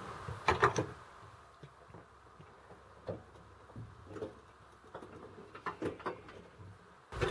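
Oil pouring from a plastic jerrycan into a funnel, with a few irregular glugs and soft knocks.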